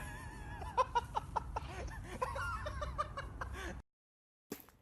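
High-pitched voice sounds like laughing or cackling, in short wavering bursts over a low rumble, cut off abruptly into dead silence near the end.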